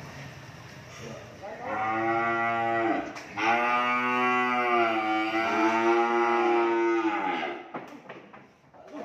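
A cow mooing: a call of about a second and a half, then after a brief break a long moo of about four seconds.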